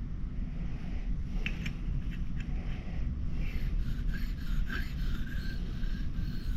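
Steel striker's edge being stroked across a whetstone, a series of short scrapes starting about a second and a half in, over a steady low wind rumble.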